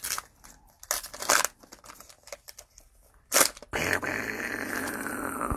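Trading cards and plastic cello wrappers being handled on a table: small scattered clicks and rustles, then a sharp crackle about three and a half seconds in. After it comes a longer steady rustling noise that slides down in pitch.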